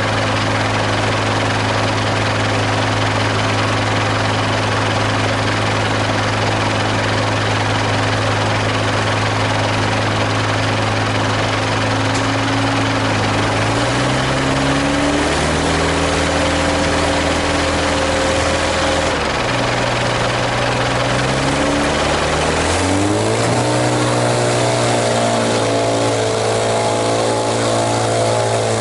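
Detroit Diesel 4-53 two-stroke diesel of a Timberjack 450 skidder running steadily, then revving up in steps around the middle, easing off briefly, and climbing to higher revs about three quarters of the way through, as the skidder works to pull a stuck farm tractor free.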